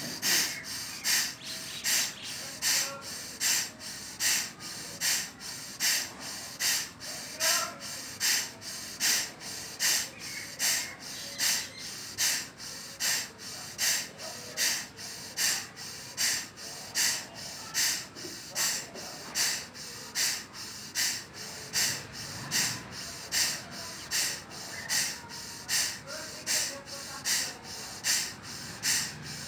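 A man's forceful, rhythmic nasal exhalations of Bhastrika pranayama, blasted out through one nostril with the other held shut, a little over one breath a second. Each breath is a sharp, sneeze-like rush of air.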